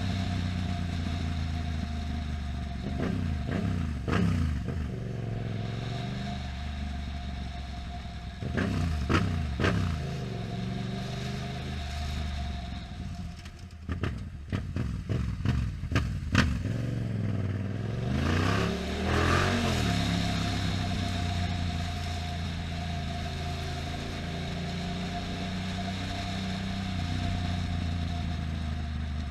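Yamaha FZ-07's parallel-twin engine running under way, revving up and settling back three times as it pulls through the gears. A run of sharp clicks and knocks comes about halfway through.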